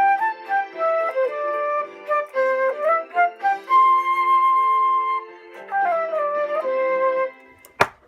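Electronic keyboard playing a melody on a flute-like voice over held chord accompaniment. The music stops near the end, followed by a single sharp click.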